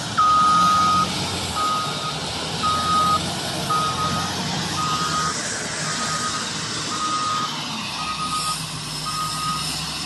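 Wheel loader's reversing alarm beeping about once a second, ten beeps with the first one longer and louder, over the steady running of the machine's diesel engine.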